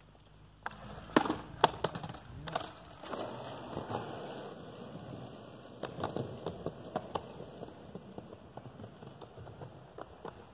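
Skateboard rolling, with sharp clacks of the board striking the ground: a cluster of loud clacks about a second in and more around six seconds in, a steady rolling sound between them.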